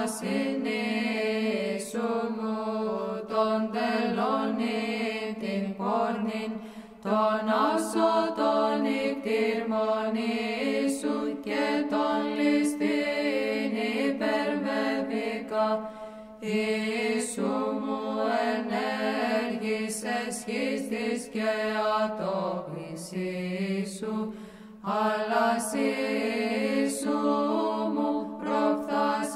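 Greek Orthodox Byzantine chant: male voices sing a slow, ornamented melody over a low note held steady underneath. It goes in long phrases with short breaks between them.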